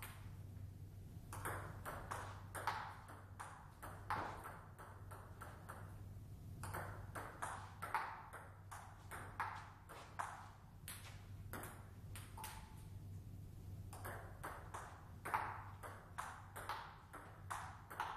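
Table tennis rallies: the celluloid ball clicking back and forth off the table and the bats in quick runs of hits, with short pauses between points. One bat is a Hallmark Aurora blade with Meteor 8512 OX rubber. A steady low hum runs underneath.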